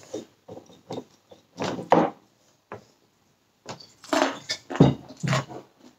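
Crisp, cornstarch-battered fried chicken being bitten and chewed close to the microphone: a string of irregular crunches, the loudest in bursts about two seconds in and between four and five and a half seconds in.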